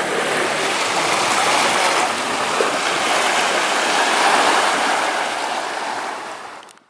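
Small sea waves washing onto a sandy, rocky shore: a steady wash that fades out and stops just before the end.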